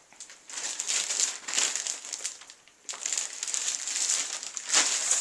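Plastic wrap crinkling and crackling as it is handled and pulled off a new keyboard, in two stretches with a short pause a little past halfway and the loudest crackle near the end.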